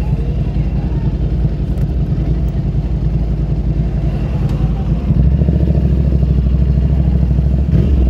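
Motorcycle engine running at low revs with a steady, deep, pulsing rumble; the low rumble gets heavier about five seconds in.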